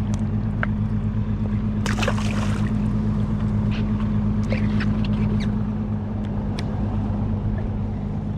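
Boat engine running steadily with a low, even hum, with scattered small clicks and a short rushing noise about two seconds in.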